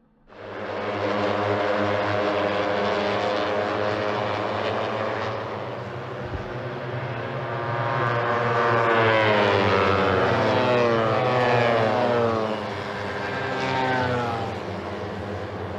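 Race car engines running at high revs, with several sweeps falling in pitch in the second half.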